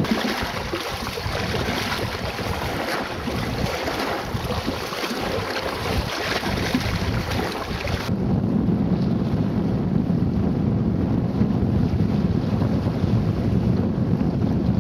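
Wind over a choppy lake: a steady hiss of wind and waves. About eight seconds in, the sound changes abruptly to the low buffeting of wind on the microphone.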